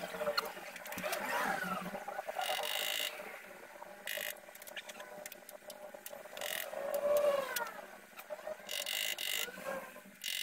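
A hand pick scraping leftover aluminium from the old cup out of a bicycle's steel bottom bracket shell: short rasping strokes that start and stop sharply, mixed with squeaky rising-and-falling squeals of metal on metal.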